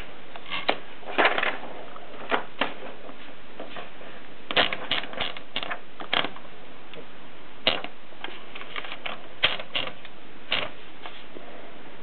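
Brillant Junior portable typewriter's carriage and platen mechanism being worked by hand: irregular sharp clicks and short ratcheting rattles, some in quick clusters, as paper is wound in and the carriage is moved.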